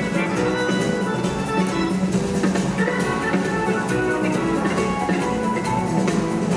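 Live band playing an instrumental jam: sustained organ chords and electric guitar over bass and a drum kit keeping a steady beat.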